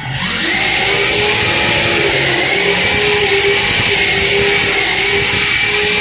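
A motor running steadily at speed with a loud hiss over a steady hum, building up over the first second.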